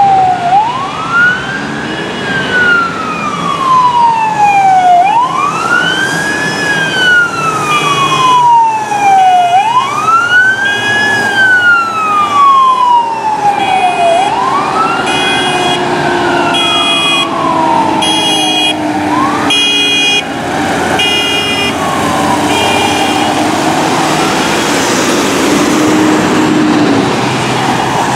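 Fire engine siren wailing, each cycle a quick rise and a slower fall about every four and a half seconds. Partway through, a second vehicle joins with short horn-like blasts about once a second. Both fade away near the end, leaving the sound of passing traffic and engines.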